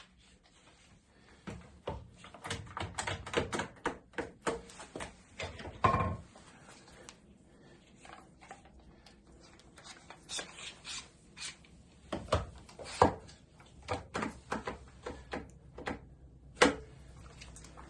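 Irregular clicks and knocks of things being handled and put down, with a few louder thumps. There is no steady motor sound.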